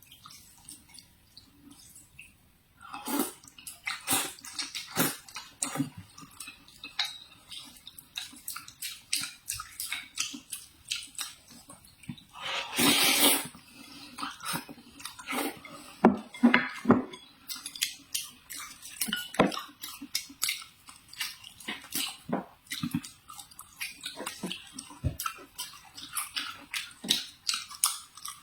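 Irregular clicks and light knocks of utensils against cookware or dishes, with a louder hiss lasting about a second and a half roughly halfway through.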